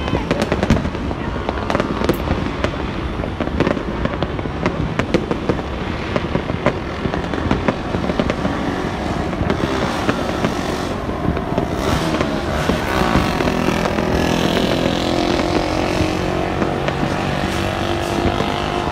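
Many fireworks and firecrackers bursting at once, a dense, continuous crackle and popping. From about midway a motorcycle engine rises in underneath as it rides along the road.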